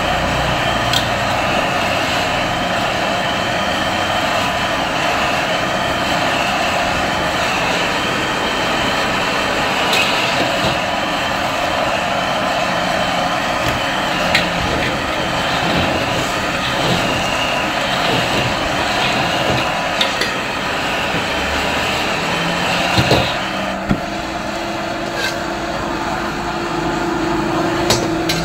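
Gas wok burner roaring steadily under a hot wok, with a metal spatula knocking and scraping against the wok now and then. The roar eases a little near the end.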